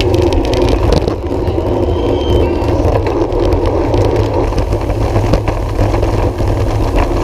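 Wind buffeting the microphone of a camera mounted on a racing bicycle riding in a tight pro peloton, mixed with tyre and road noise: a loud, steady low rumble.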